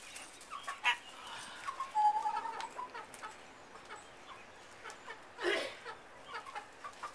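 Hens clucking with short, scattered calls, and one longer drawn-out call about two seconds in.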